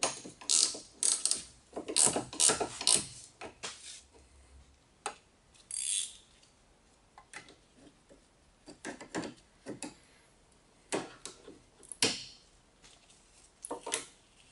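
Ratchet wrench clicking in short bursts as the bolt and nut of an anti-roll bar drop link are tightened, loudest in the first few seconds, then in scattered strokes.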